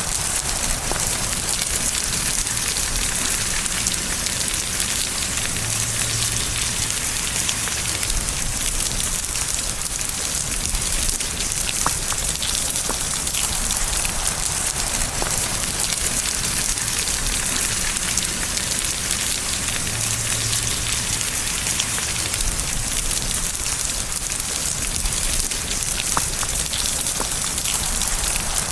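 Steady rain falling, with a constant hiss and scattered individual drops striking a surface.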